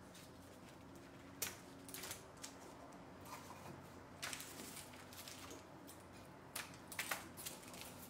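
Scissors snipping flower and eucalyptus stems, with the stems and wrapping paper handled on a tabletop: a few sharp snips and clicks spread through, with light rustling between.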